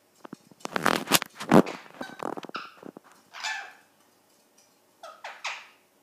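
Ringneck parrot calling: a burst of harsh, noisy squawks in the first couple of seconds, the loudest about a second and a half in, then a few shorter separate calls, two close together near the end.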